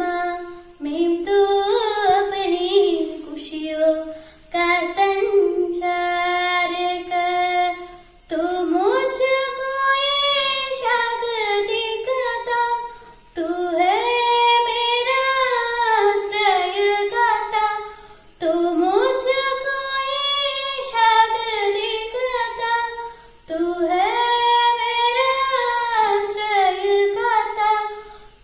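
A girl singing a prayer song solo and unaccompanied, in long held phrases of a few seconds each with short breaks for breath between them.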